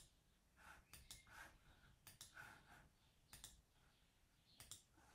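Faint computer mouse clicks, about half a dozen scattered over a few seconds, against near silence.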